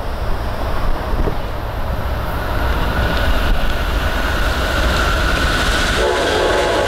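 An approaching Amtrak passenger train: its rumble and a thin high whine grow as it nears, and about six seconds in its locomotive sounds its multi-note horn, a chord of several steady tones.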